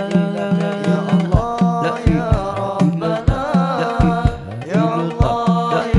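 Sholawat devotional singing over a steady pattern of drum strokes and a held low note, the sung line gliding and ornamented.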